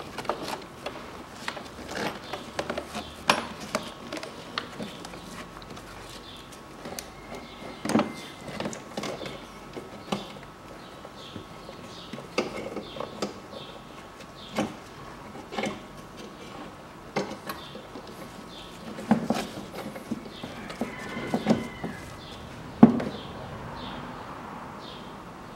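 Plastic clicks, knocks and scrapes of an Audi Q7's air filter housing lid being worked loose and lifted by hand. There are many irregular taps and a few heavier knocks, the loudest near the end.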